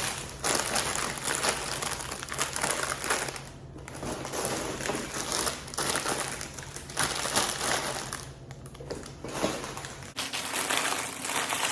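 Grocery packaging crinkling and rustling irregularly as items are handled and unpacked, with brief lulls twice.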